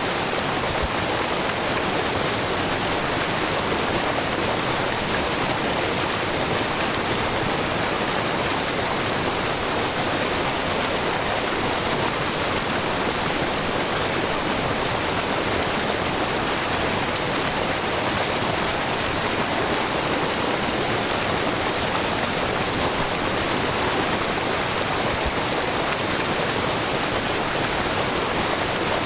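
Steady rush of Shiraito Falls, a low, wide waterfall where spring water pours from a rock face in many thin streams, with no breaks or changes.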